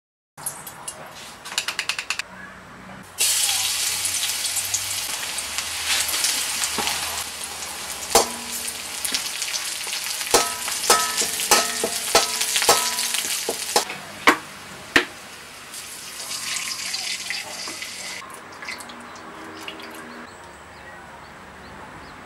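Chopped garlic and dried red chillies sizzling in oil in a stainless steel wok, stirred with a metal spatula. The spatula knocks and rings against the wok several times around the middle. The sizzle starts about three seconds in and grows much quieter after about eighteen seconds.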